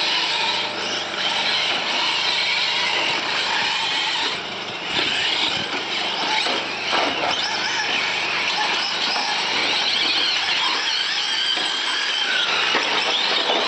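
Radio-controlled trucks running on a dirt track, their motors giving a high whine that rises and falls in pitch with the throttle.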